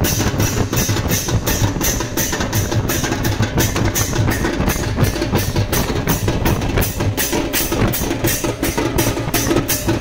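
Fast percussion: a steel-shelled drum beaten in a steady rhythm with bright metal clashes on nearly every beat, several strokes a second.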